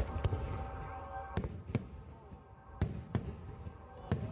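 Fireworks bursting overhead: a series of sharp bangs, some in quick pairs, over background music with long held notes.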